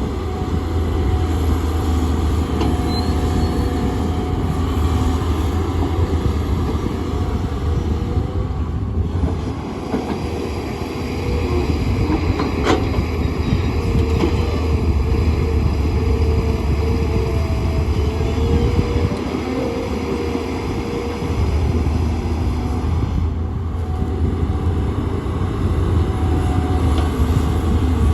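Tata Hitachi excavator's diesel engine running steadily under load, with a wavering whine over the low rumble and a single sharp knock about halfway through.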